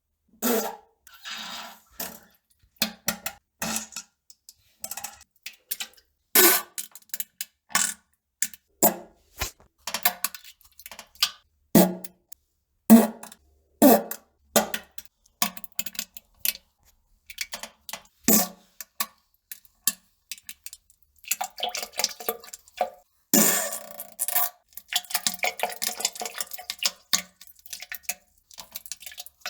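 A series of fart sounds: many short bursts with silent gaps between them, and a few longer, ragged ones about three-quarters of the way through.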